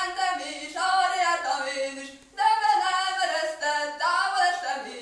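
A solo voice singing a Hungarian folk song unaccompanied, in held phrases with a short breath about two seconds in.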